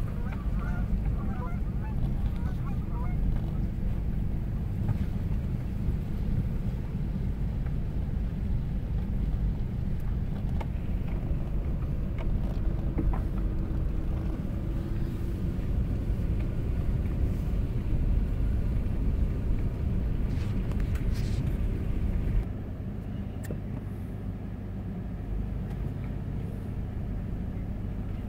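Car road and engine noise heard from inside the cabin while driving slowly along a paved road, a steady low rumble. Geese honk in the first few seconds, and the rumble drops suddenly to a quieter level about three-quarters of the way through.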